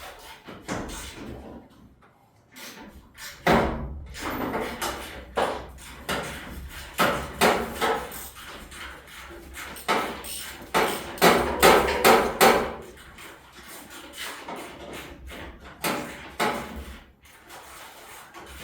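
Irregular metallic knocks and clanks of hand tools working on the truck's fender bolts. They come loudest and quickest in a run of strikes around eleven to twelve seconds in.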